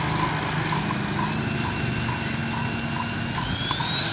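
A 70 mm electric ducted fan in a foam RC jet model runs with a thin steady whine, which climbs in pitch near the end as the throttle is opened for a take-off run.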